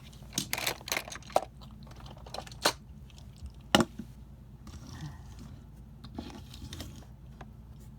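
Steady low hum of a car cabin on the move, with irregular sharp clicks and crunches close to the microphone; the loudest come right at the start and once about four seconds in.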